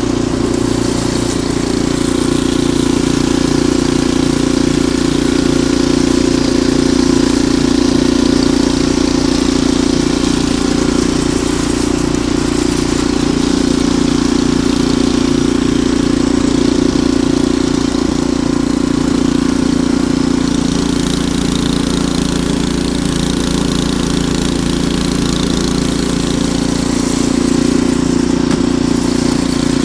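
Ariens Deluxe 28 two-stage snowblower engine running steadily at a constant speed, with a slight shift in its note about twenty seconds in.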